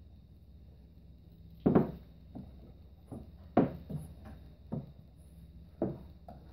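Pool balls knocking on a small pool table as they are handled by hand: two loud clacks and several softer knocks, roughly a second apart.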